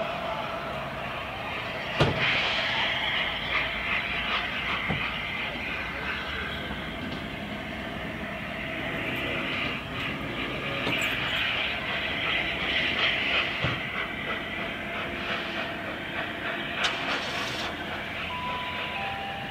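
LNER A4 Pacific three-cylinder steam locomotive moving slowly under steam, its open cylinder drain cocks hissing and swelling twice. Its wheels click over pointwork as it crosses between lines.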